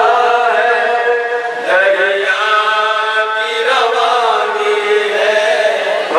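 Men chanting a noha, a Muslim mourning lament: one lead male voice sings long held notes that bend between syllables, with other men's voices joining in.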